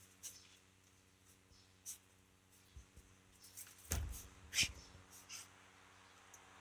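A Shiba Inu's claws scratching and scraping in soil as it digs, in scattered strokes, with two louder scrapes a little past halfway.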